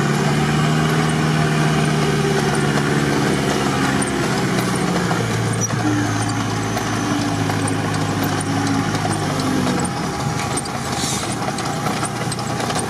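Off-road 4x4's engine running, heard from inside its cabin. The engine note shifts lower about five seconds in and fades out near the end.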